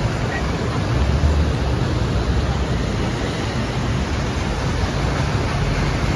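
Steady, loud rushing noise with a strong low rumble, without break.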